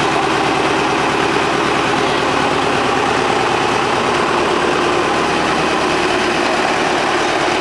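Small narrow-gauge diesel locomotive, built by LKM Babelsberg, with its diesel engine idling steadily close by.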